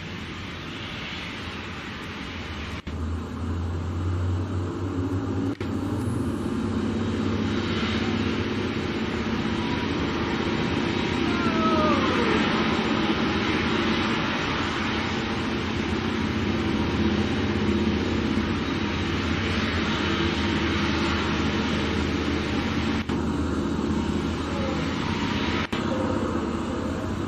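Steady rumble and hiss of a Boeing 737-800's CFM56 jet engines at taxi power, mixed with the spray of airport fire trucks' water cannons arcing over the aircraft. The sound grows louder about three seconds in and shifts abruptly at a few edits.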